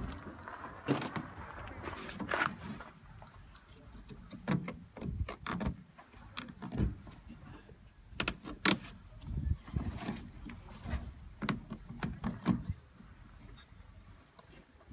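Leatherman knife cutting and trimming a leather case, with irregular clicks, scrapes and knocks from handling the leather and tool. The clicks stop about two seconds before the end.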